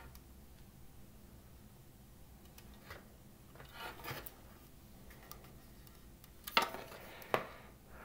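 Plastic case halves of a cassette recorder handled and shifted: a soft rubbing rustle about halfway through, then two sharp plastic knocks near the end, a little under a second apart.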